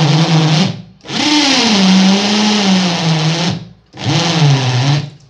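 Corded electric drill driving a hole saw into thick wood, running in three bursts with short stops between them. The motor whine sags in pitch as the saw bites, rising briefly each time it restarts.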